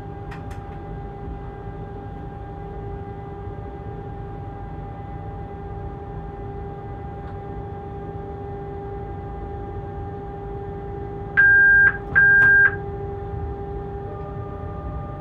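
Steady electric hum and low running rumble inside the cab of a BR 186 (Bombardier TRAXX) electric locomotive under way. A little past halfway, two short, loud electronic beeps of a cab warning tone sound in quick succession, and near the end a further steady tone joins the hum.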